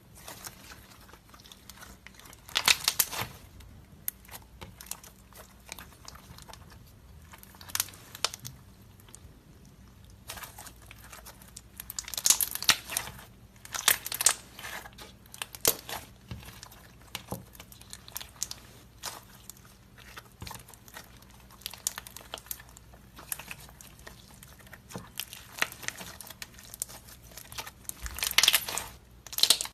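Slime being squeezed, pressed and stretched by hand, giving irregular bursts of quick, crisp clicks and pops. The loudest bursts come about three seconds in, again around twelve to sixteen seconds, and near the end.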